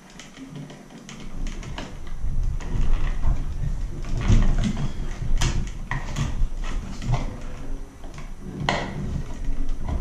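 Electrical wires being handled and pushed into a blue plastic wall box: scraping and rustling with irregular clicks and knocks as the wires rub and tap against the box. The sharpest clicks come about halfway through and again near the end.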